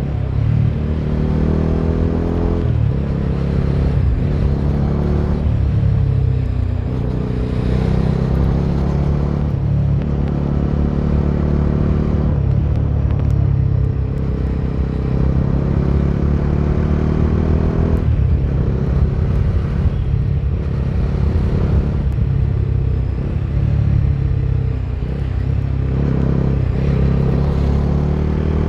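Bajaj Dominar 250's single-cylinder engine pulling the motorcycle along on the road, its pitch rising and falling again and again as the rider accelerates and eases off, with road and wind noise.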